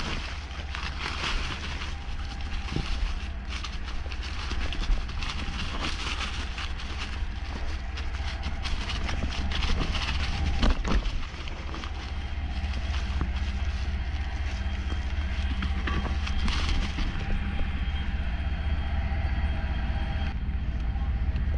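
A mountain bike descending a rough downhill trail: wind rushing over the rider's camera microphone, tyre noise and steady rattling from the bike, with many sharp knocks and one louder jolt about halfway through.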